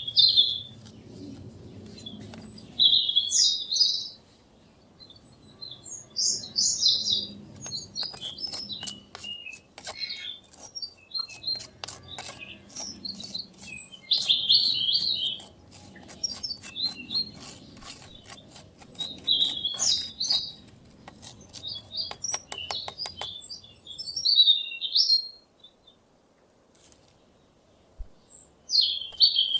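Small birds chirping and calling in short repeated phrases throughout, with two runs of rapid sharp clicks partway through.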